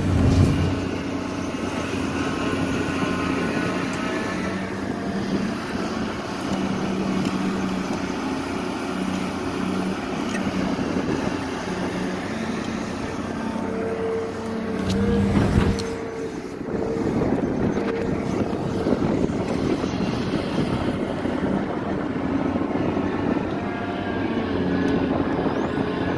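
Caterpillar excavator's diesel engine running under working load, its note rising and falling as the hydraulics move the bucket, with a short louder burst about fifteen seconds in.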